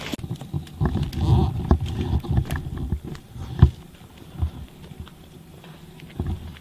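Irregular footsteps and bumps of someone walking with the camera over rough, soft ground, with a sharper knock about three and a half seconds in.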